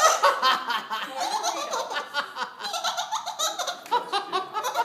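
Amazon parrot mimicking laughter: a long run of short, high-pitched laughs.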